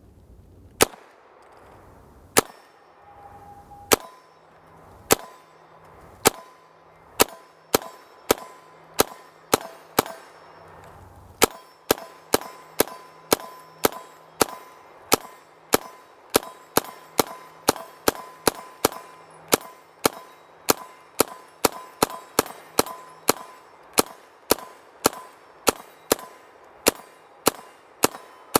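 Calico M900 9mm semi-automatic carbine firing a long string of single shots through its 50-round helical magazine. It fires slowly at first, about a shot a second or less, then from about eleven seconds in settles into a steady rate of about two shots a second.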